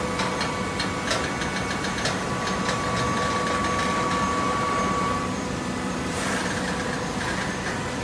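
Hydraulic baler running: a steady machine hum with a whine that stops about five seconds in. Rapid ticking in the first few seconds and a brief hiss a little after six seconds.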